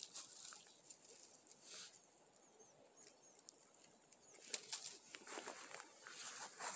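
Green Korean pine cones being set down and tossed onto a pile in dry grass and pine needles: faint rustling and light knocks of cone on cone. A cluster of sharper knocks comes about four and a half seconds in, as a tossed cone lands.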